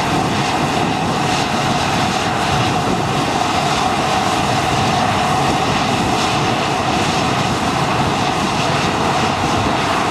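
Harvest machinery running steadily: a continuous engine and machine drone with a held tone.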